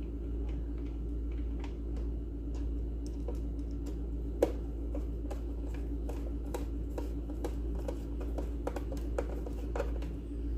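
Light scattered clicks and taps of hands handling small plastic and metal parts and screws of a mixer grinder being taken apart, with one sharper click about four seconds in.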